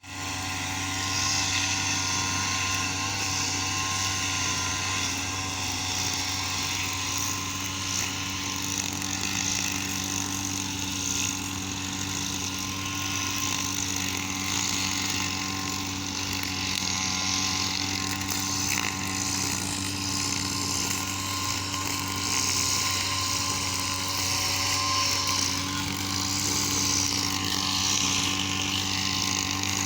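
Small engine of a grass-cutting machine running steadily at an even pitch.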